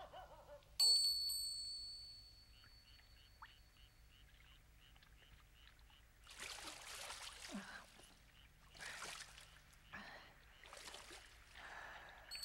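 A single high, bell-like ding about a second in, ringing out and fading over about two seconds, followed by faint quick tinkling notes. Then hot-spring bath water splashing and trickling in three short spells.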